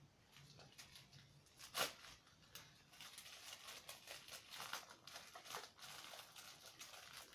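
Faint rustling and crinkling of a plastic postal parcel being torn and pulled open by hand, with one sharper crackle about two seconds in.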